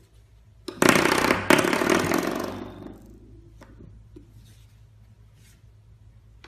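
Spring door stop twanging as a puppy knocks it, struck twice in quick succession about a second in and ringing down over the next two seconds. A few faint taps follow as the puppy mouths it.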